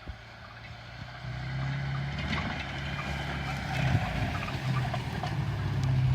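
Opel Frontera A Sport's engine running, getting louder about a second in and holding a steady hum, with scattered light clicks and knocks over it; the owner hears something knocking on this vehicle.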